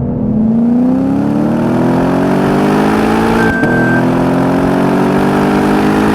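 Lexus RC-F's 5.0-litre V8 with an aftermarket cat-back exhaust accelerating hard, its pitch climbing steadily through one gear, dropping briefly at a quick upshift about halfway through, then climbing again in the next gear.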